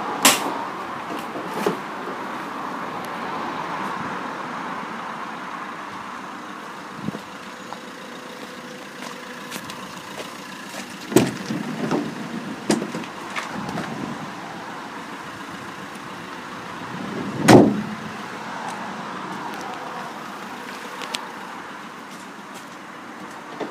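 Scattered knocks and clunks from the empty cargo area of a small van, the loudest about two-thirds of the way through, over steady background noise.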